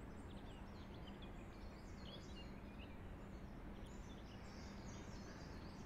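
Faint outdoor ambience with birds chirping in the distance, over a low steady hum.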